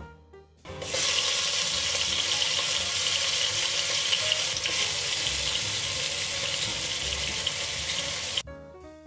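Cumin seeds, chopped ginger and green chillies sizzling in hot oil in a pot. The sizzle is a loud, steady hiss that starts suddenly about a second in and cuts off shortly before the end.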